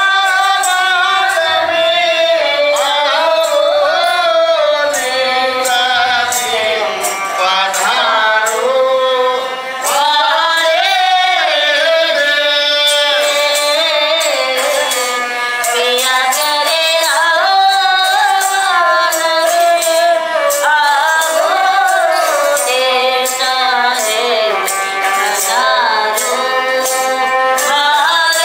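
Ravanahatha, the Rajasthani bowed stick fiddle, playing a sliding folk melody with a voice singing along and a quick jingling rhythm from the bells on its bow.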